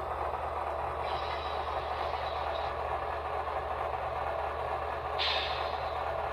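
HO-scale Union Pacific diesel model's sound decoder playing a diesel locomotive running sound through its small speaker, a steady rumble with a low hum underneath. Two air hisses come in, one about a second in and a stronger one about five seconds in.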